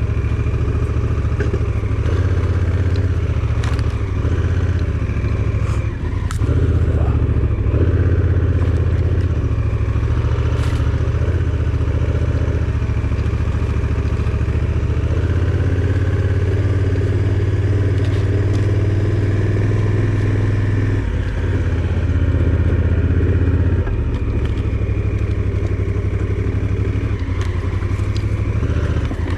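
Vehicle driving along a rough unpaved road: a steady low engine drone with rattles and occasional knocks from the bumpy surface, a little louder for a while from about six seconds in.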